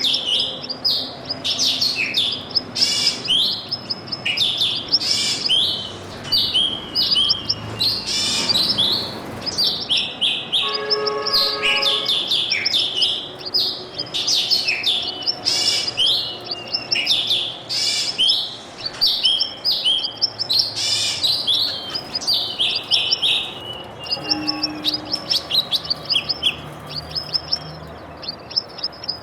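Many small birds chirping and tweeting at once, a busy, continuous chorus of quick overlapping high notes.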